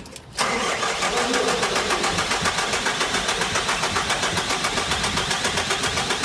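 Hyundai Porter diesel engine turning over on the starter, with starting fluid sprayed into its crankcase ventilation hose. It starts suddenly about half a second in and keeps an even pulse of about five or six beats a second.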